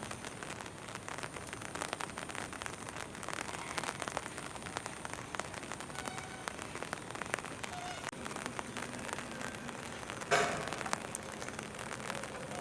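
Steady rain falling, with many close drops ticking. A short, louder noise breaks in about ten seconds in.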